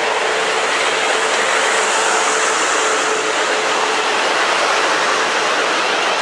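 South West Trains electric multiple unit moving along the platform: a steady rush of wheel and rail noise with a faint steady hum underneath.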